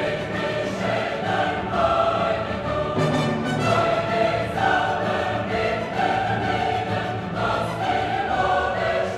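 Background music: a choir singing held notes over an orchestra, in a classical style.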